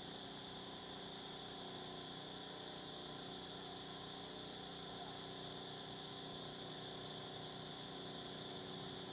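Steady background drone: a low, even mechanical hum with several fixed tones, like a distant engine idling, under a high, even insect buzz. No calls from the monkeys.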